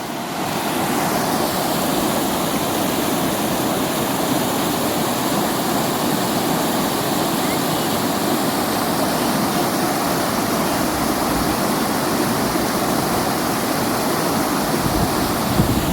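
Mountain river rushing, a steady, even sound of flowing water.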